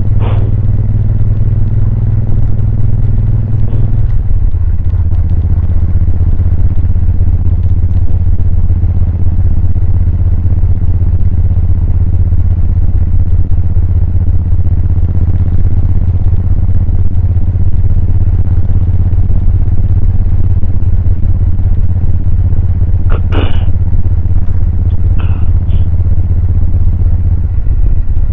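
Suzuki VL1500 Intruder's V-twin engine and exhaust running steadily while riding. The engine note drops about four seconds in and picks up again near the end, with a few short clicks a few seconds before the end.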